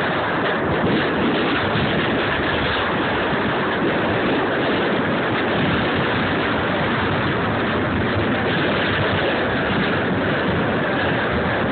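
Steady rushing noise with no distinct bangs or pops.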